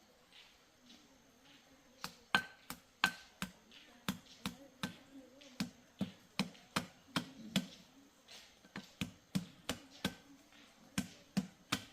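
A long series of sharp, light taps or clicks, irregular at roughly two to three a second, starting about two seconds in.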